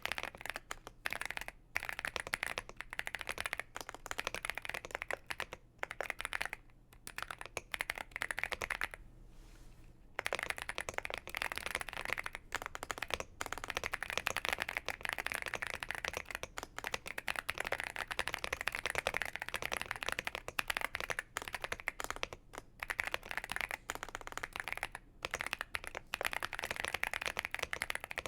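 Typing on a Womier SK71 mechanical keyboard with CannonKeys Coffee Chip Ice Cream tactile switches: fast, continuous keystrokes with a brief pause about nine seconds in.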